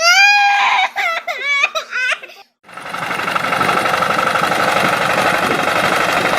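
A series of short, high-pitched wordless vocal cries that glide up and down in pitch. After a brief pause, about three seconds in, they give way to a loud, steady, rapid mechanical rattle of a running machine.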